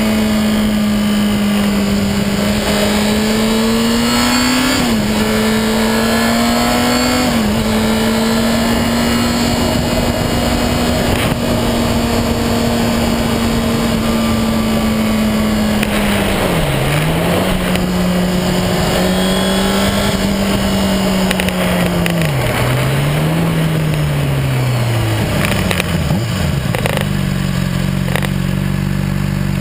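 Honda CBR motorcycle engine running on the move, over steady wind noise. The engine note climbs and drops sharply twice as it shifts up, then holds steady while cruising. It dips and recovers twice, then falls to a steady idle near the end as the bike comes to a stop.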